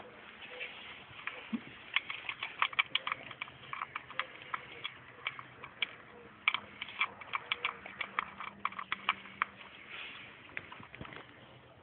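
Bouvier des Flandres puppy eating dry dog biscuits from a stainless steel bowl: a quick, irregular run of sharp crunches and clicks of kibble against the metal. It comes in two busy spells and thins out near the end.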